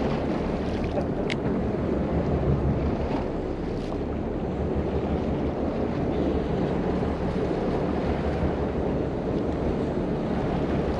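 Wind buffeting the microphone over water washing against the hull of a fishing boat at sea, with a steady low rumble underneath.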